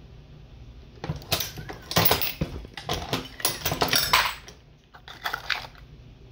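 Brass .223 cases clinking and clicking against the metal shellplate of a Dillon XL750 progressive reloading press as they are handled. A rapid run of small metallic clicks starts about a second in and lasts about three and a half seconds, followed by a shorter run.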